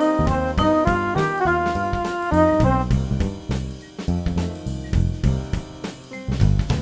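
Background jazz music: brass over a drum kit playing a steady beat.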